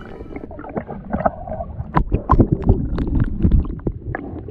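Water sloshing and gurgling around a camera held under and at the surface, heard muffled, with a run of sharp clicks and knocks from about two seconds in as a hand digs through sand and shells on the sea bottom.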